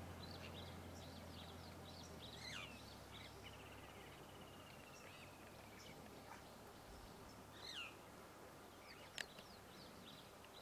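Faint wild birdsong: scattered short chirps from several birds, and a quick trill of rapid notes from about three to six seconds in. A low hum fades out about two seconds in, and a single sharp click comes about nine seconds in.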